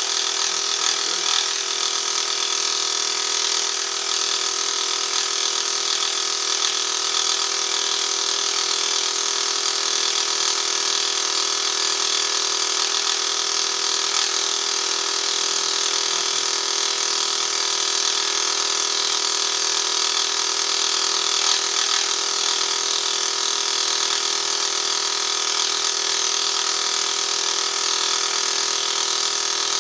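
Benchtop milling machine running steadily, its dovetail cutter machining a cast iron cross slide, with several steady tones held at an even level.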